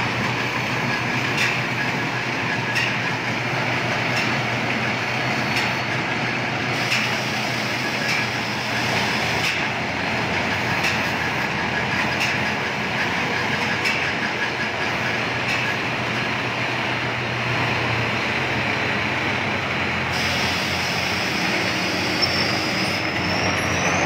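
Tracked combine harvester driving on concrete: its diesel engine running steadily while the crawler tracks clatter, with a regular click about every second and a half.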